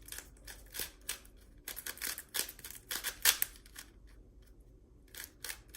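GAN356 i plastic 3x3 speedcube being turned quickly to scramble it: quick, irregular clicks and clacks of its layers, a few turns at a time with short pauses between.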